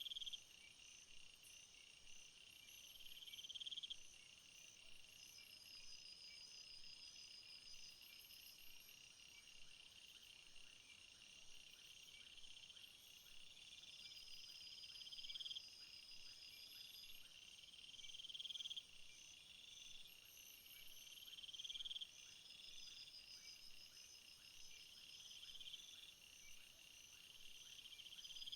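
Faint night-time jungle ambience of insects chirping and trilling in a steady high-pitched chorus. Several times, one louder buzzing call swells over a few seconds and then cuts off abruptly.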